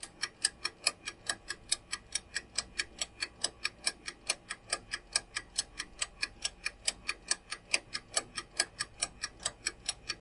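Countdown-timer sound effect of a clock ticking in fast, even ticks, which marks the seconds left to answer and stops when the time runs out.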